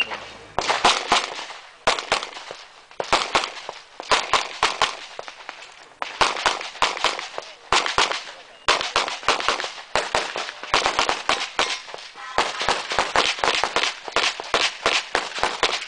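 Pistol fire in a practical shooting stage: rapid strings of shots, often in quick pairs, broken by short pauses of about a second as the shooter moves between positions.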